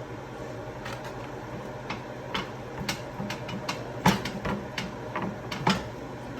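Irregular knocks and taps of kitchen work, starting about a second in and loudest about four seconds in, over a steady background hum.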